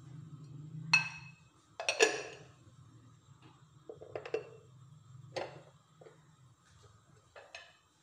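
Kitchen containers and utensils being handled: a string of about six separate clinks and knocks of glass, plastic and metal, one ringing clink about a second in and the loudest knocks around two seconds in.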